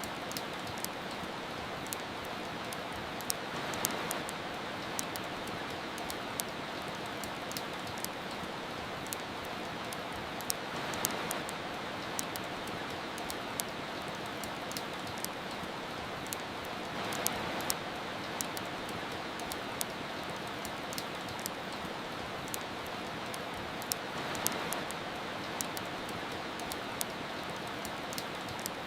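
Steady rain hiss with frequent sharp crackles and pops from a wood fire. The rain swells gently about every seven seconds.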